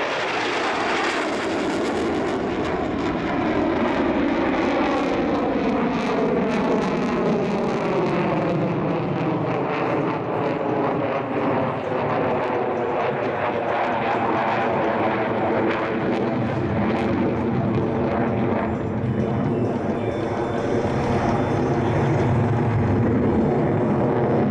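F-16 Fighting Falcon single-engine fighter jet flying past in a display pass, its engine noise loud and continuous. A whooshing sweep falls slowly in pitch through the first half and then levels out, with crackling at times.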